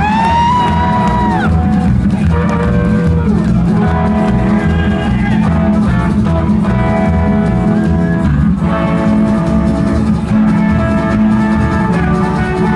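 Rockabilly band playing live and loud, with guitar over a heavy, thumping bass beat. A long held vocal note sounds in the first second and a half.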